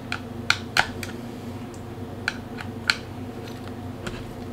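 A few sharp, irregular clicks and taps of a Phillips screwdriver working a tension screw on a CYTAC polymer double magazine pouch, and the hard plastic knocking in the hands, as the screw is tightened to narrow the magazine slots. A low steady hum runs underneath.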